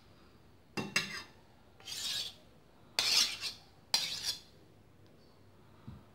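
A knife and cake server scraping against a plate and a cut panettone in four short strokes about a second apart, the first starting with a sharp knock, as a slice is lifted out and served.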